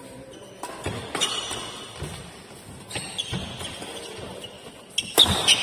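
Badminton doubles rally: rackets striking the shuttlecock, with footfalls and shoe squeaks on the court. The loudest, sharpest hit comes about five seconds in.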